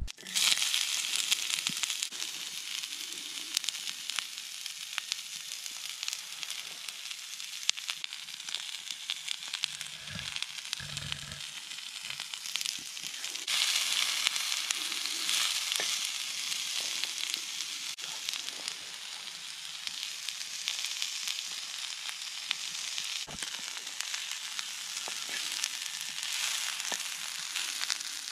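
Sliced onions sizzling in a Muurikka frying pan over a campfire, with a steady hiss full of small crackles as they are turned with an axe blade. The sizzle starts suddenly and grows louder about halfway through.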